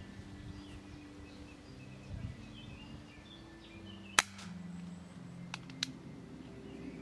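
ASG Schofield 6-inch CO2 airsoft revolver firing a single sharp shot about four seconds in, a full-power shot that the chronograph clocks at about 530 fps. Two fainter clicks follow about a second and a half later.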